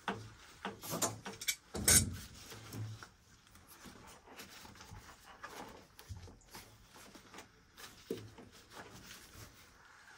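Old gas control valve on a gas water heater being handled and unthreaded from the tank by gloved hands: a few sharp knocks and clunks in the first two seconds, the loudest about two seconds in, then faint scraping and handling.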